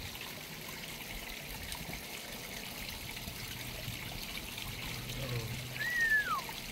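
Steady trickle of running water with a faint low hum under it. About six seconds in, a single whistled note slides downward.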